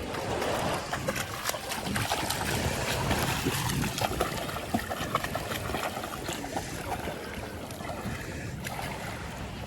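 Sea water sloshing and splashing close to the microphone as people wade and swim, with many small splashes scattered through it.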